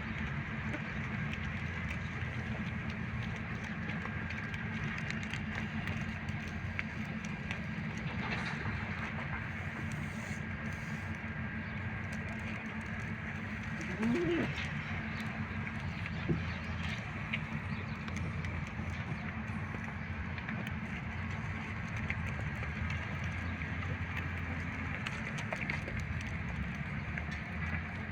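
Steady low background noise, with a single short animal call about fourteen seconds in.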